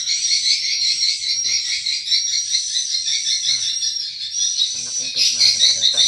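Edible-nest swiftlets twittering: a dense, unbroken high chirping that fills the swiftlet house.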